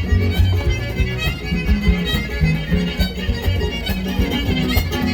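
Son huasteco played live: a violin carries the melody over strummed jarana and huapanguera in an instrumental interlude between sung verses.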